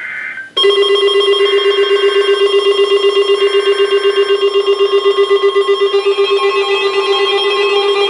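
NOAA Weather Radio receivers alarming for a tornado warning: a loud, rapidly pulsing alarm tone. The screeching digital SAME header bursts of the alert come through it twice.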